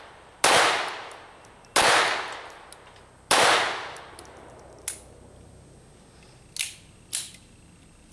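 Three pistol shots about a second and a half apart, each ringing out and fading over about a second, followed by a few much fainter sharp clicks.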